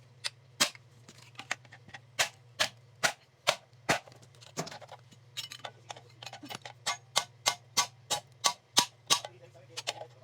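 Sharp metal-on-metal strikes, about two a second and quickening to two or three a second after the midpoint, typical of hammer blows while dismantling an electric fan motor to reach its copper windings. A faint steady low hum runs underneath.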